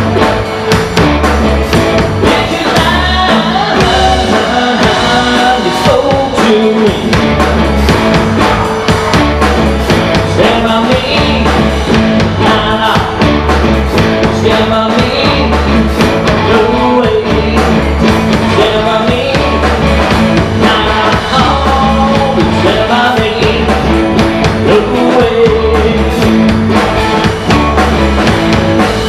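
Live rock band playing a song with a steady drum beat and bass under pitched lead lines.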